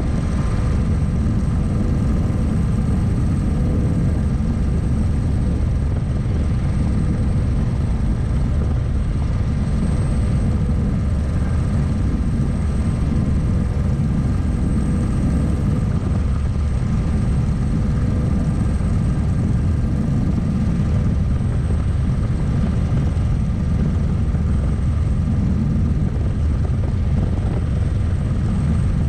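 Single-seat turbine helicopter built to an Eagle R&D design, heard in cruise flight from inside its cockpit: a steady, dense low rotor rumble with constant whine tones above it.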